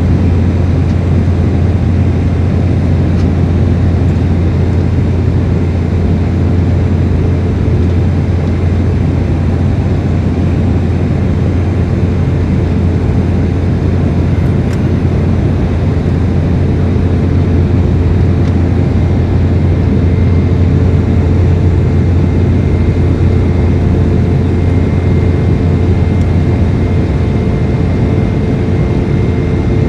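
Cabin noise of an Embraer 195 airliner climbing after takeoff: its GE CF34-10E turbofan engines and the airflow make a steady low rumble, with a faint steady whine above it.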